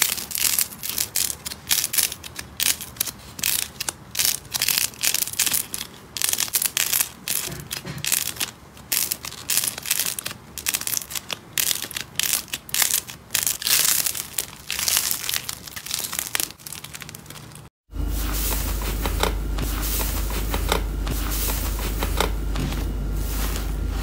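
Slime squeezed and pressed by fingers, giving dense, irregular runs of crackling clicks and pops. About three quarters through, a break, then a softer inflated slime pressed with a few faint clicks over a steady low hum.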